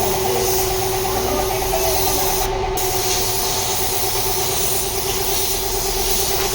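Steady hiss of air or spray over a constant machine hum; the hiss cuts out briefly about two and a half seconds in while the hum keeps going.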